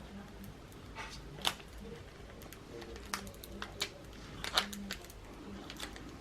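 Transfer tape and vinyl backing paper being handled and peeled apart: irregular soft crinkles and small crackling clicks, two louder crackles standing out about one and a half and four and a half seconds in.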